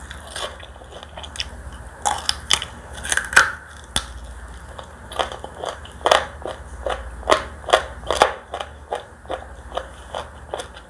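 Close-miked biting and chewing of crispy fried chicken: a few crunches, then a quick run of crunches several times a second in the second half.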